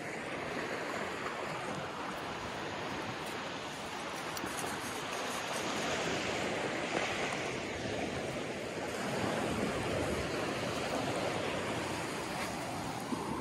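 Sea surf on the shore, a steady rushing wash that swells a little about six seconds in and again near ten seconds, with some wind.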